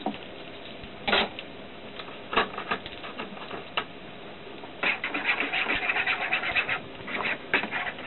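A utensil scraping and tapping in a bowl as powdered egg and water are stirred together. A few separate clicks come first, then a quick run of scraping strokes about five seconds in.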